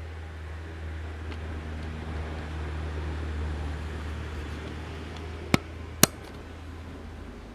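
A steady low hum with two sharp clicks about half a second apart near the end.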